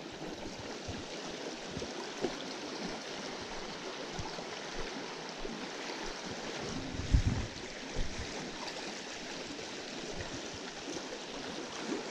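Steady rush of a small creek running high after rain, with a single low thump about seven seconds in.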